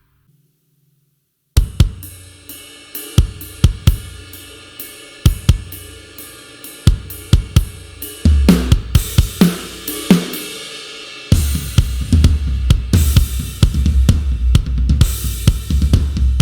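Sampled aggressive rock drum kit from the GetGood Drums One Kit Wonder Aggressive Rock library, playing a groove of kick, snare, hi-hat and cymbals. It comes in after about a second and a half of silence. The kick gets busier about eight seconds in, and from about eleven seconds a fast, steady kick pattern runs under loud cymbals.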